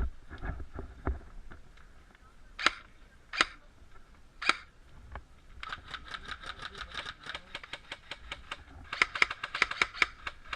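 Airsoft guns firing: three single shots about a second apart, then long rapid full-auto bursts of sharp clicks.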